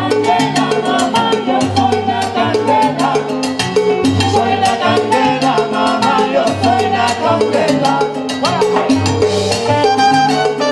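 Live salsa band playing, with timbales, trumpet and a pulsing bass line over a dense percussive dance rhythm.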